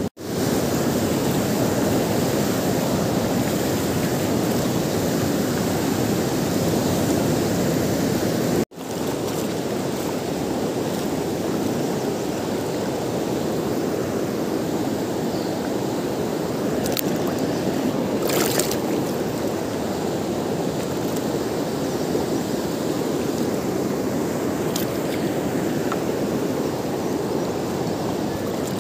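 Fast, muddy river current rushing steadily, a constant full water noise. The sound cuts out abruptly for a moment about nine seconds in, and a few faint clicks come near the middle.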